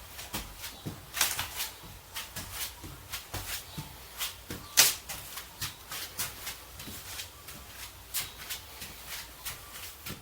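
Irregular light clicks and taps, a few a second, with one sharper knock near the middle: small objects being handled.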